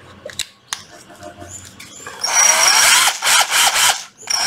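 Used Hitachi FDS 12DVC 12 V cordless drill test-run: after a few light handling clicks, the motor spins up with a high whine about two seconds in, runs for under two seconds, stops, and starts again near the end. It runs smoothly, and the seller finds its variable-speed trigger working.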